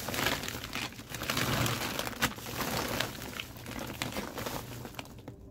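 Blue woven plastic tarp and plastic bags crinkling and rustling as hands fold them over a compost heap. Busiest and loudest in the first three seconds, then quieter.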